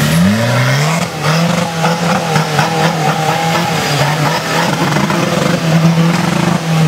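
Suzuki Samurai trial truck's engine revving under load on a steep dirt climb. The revs rise in the first second, are held high with a wavering pitch, then drop away near the end.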